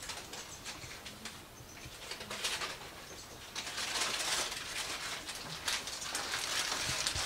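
Wild birds calling outside a wooden bird hide, over a hiss that grows clearly louder about halfway through.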